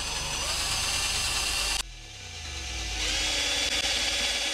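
A Craftsman cordless drill drilling holes in a Harley-Davidson bagger's fairing. The motor runs steadily, stops abruptly about two seconds in and spins down, then speeds back up, runs again and winds down near the end.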